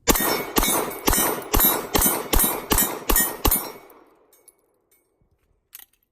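Glock 19 9mm pistol fired nine times in quick succession, about two shots a second, each shot with a short ringing tail.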